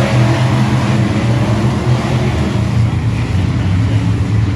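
Dirt-track race car's engine running hard at a steady pitch, at racing speed.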